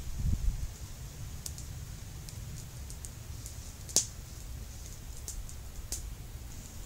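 Wood campfire crackling: scattered sharp pops, the loudest about four seconds in, over a low rumble that is strongest at the start.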